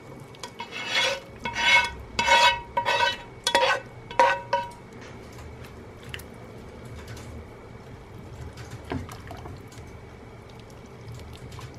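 A utensil scraping and knocking against a frying pan, about six clattering strokes over the first five seconds, as fried beetroot is transferred into the borscht pot; after that only a faint steady hum.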